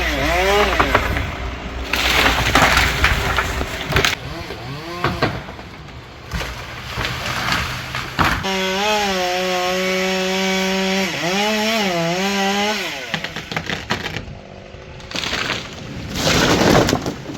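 Chainsaw running and cutting wood, its engine pitch rising as it revs and dipping as the chain takes load. There are two loud rushing bursts, one a couple of seconds in and one near the end.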